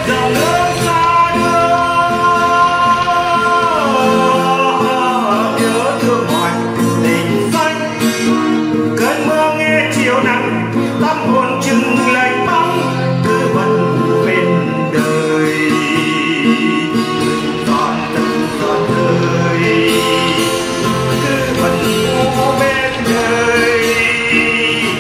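Music: a slow song sung over acoustic guitar accompaniment.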